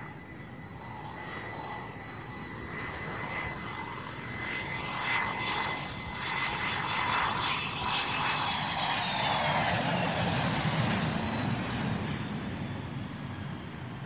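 Jet airliner coming in to land: a steady high engine whine over a rushing roar that grows louder. About nine seconds in the whine falls in pitch, and the roar peaks, then eases off a little.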